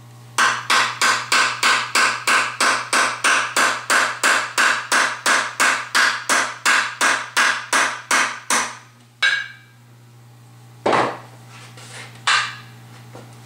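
Mallet blows on the opened crankcase of a 1955 Zündapp R150S scooter engine: a fast, even run of sharp strikes, about three a second, for some eight seconds. After a pause come two more single blows.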